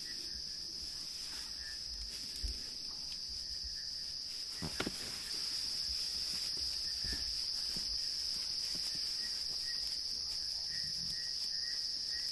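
Insects chirring steadily at a high pitch, getting louder about five seconds in, with fainter repeated chirps beneath. A few faint low thuds break through, around two and a half, five and seven seconds in.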